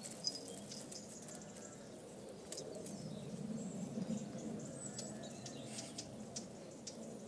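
Faint background with a few brief high bird chirps and scattered light clicks.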